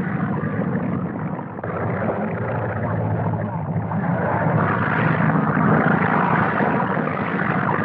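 Steady drone of propeller aircraft engines, with a sudden change in tone about a second and a half in and again past the middle.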